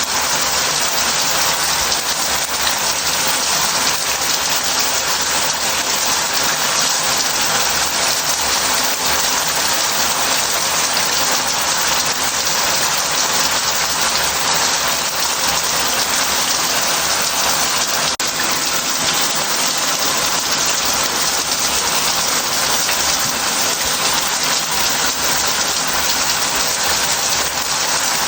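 Shower head running, its water spray falling steadily into a bath.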